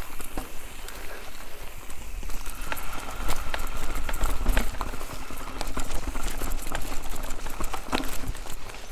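Mountain bike rattling over a rough forest trail: irregular clicks and knocks from the bike as it rolls over bumps, with a steady low wind rumble on the microphone.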